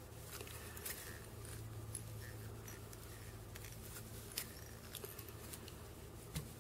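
Faint clicks and rustles of hands at a fly-tying vise, tying in feathers with thread, over a steady low hum. A few sharper clicks stand out, the loudest about four seconds in.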